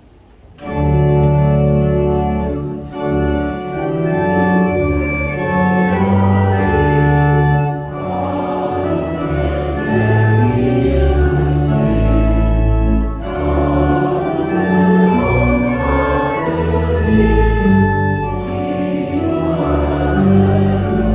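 Church organ playing a hymn in held chords over deep bass notes, starting about half a second in, with the congregation singing along.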